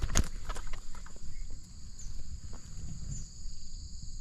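Insects calling steadily in a high, even two-toned drone, with a few sharp clicks in the first second or so.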